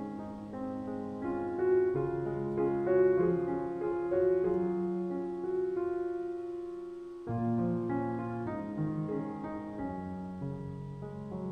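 Background piano music: a slow melody over held chords, fading briefly about two-thirds of the way through before new chords come in.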